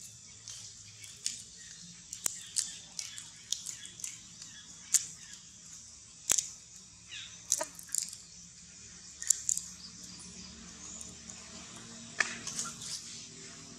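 Short high-pitched animal chirps and squeaks scattered irregularly, with a few sharp clicks and one falling squeal about seven and a half seconds in, over a faint low hum.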